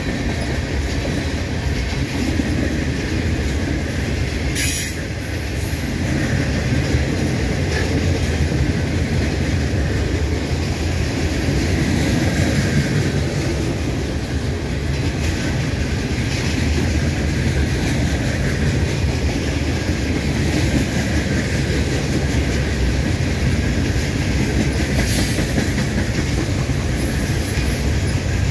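Freight cars of a mixed manifest train rolling past, their steel wheels on the rails making a steady loud rumble. A brief sharp high noise comes about five seconds in and another near the end.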